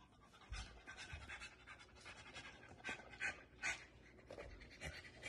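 A dog panting: faint, quick, irregular breaths, a couple a second.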